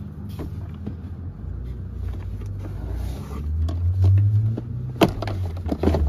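A low rumble that swells in the middle, with scattered knocks as a plastic convertible car seat is handled into a car's back seat, and two sharp knocks near the end.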